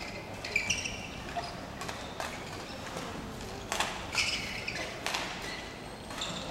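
Badminton rally: a string of sharp racket strikes on the shuttlecock, roughly one every second, with short squeaks of court shoes on the floor about half a second in and again about four seconds in.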